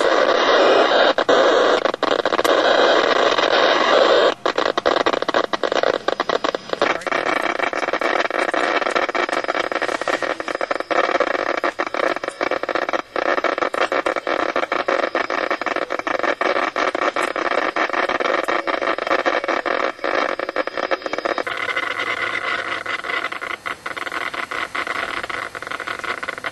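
Icom HF ham transceiver's receiver putting out a loud, steady, harsh noise laced with faint tones and rapid clicks while tuned around 7.26–7.27 MHz on the 40-metre band: interference (QRM) from Broadband over Power Lines. The noise changes character a few seconds in and again near the end.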